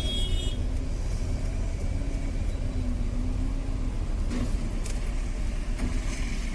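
Maruti Suzuki Swift petrol-CNG four-cylinder engine idling roughly with a steady low rumble, the revs hunting up and down and the engine vibrating. The uneven idle is the sign of a misfire, which the mechanic puts down to a failing ignition coil on the third cylinder.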